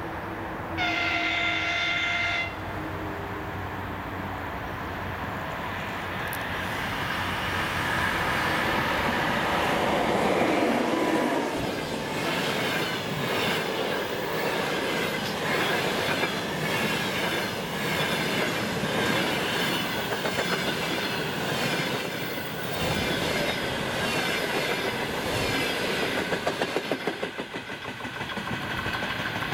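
An EP2K electric locomotive sounds its horn once, a chord lasting under two seconds, and then an express passenger train runs past, its wheels clicking over the rail joints in a fast, even rhythm that fades near the end.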